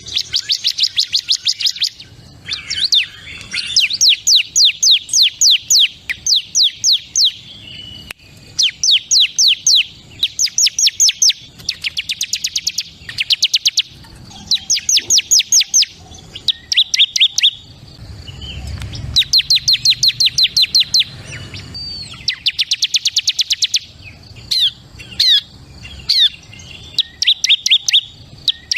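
Bar-winged prinia (ciblek kristal) singing: rapid trills of quick repeated high notes, about ten a second, in phrases of one to two seconds separated by short pauses, over and over.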